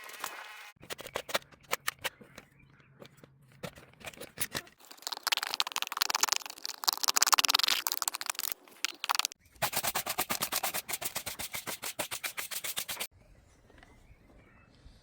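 Cordless 20V grass trimmer cutting grass, its spinning line striking the grass in rapid, crackling ticks in uneven runs, with a faint low motor hum early on. The cutting stops abruptly about thirteen seconds in, leaving faint bird chirps.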